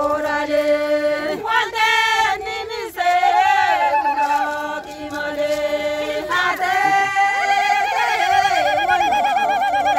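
Group of voices singing a chant in long held notes, with a wavering vibrato on the higher notes and brief breaths between phrases.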